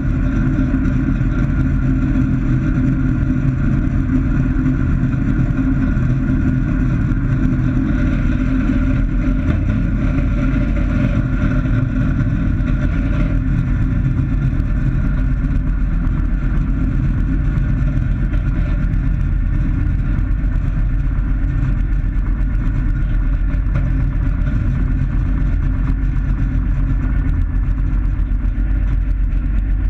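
Light experimental aircraft's piston engine and propeller running steadily at low power while taxiing, heard from inside the cockpit.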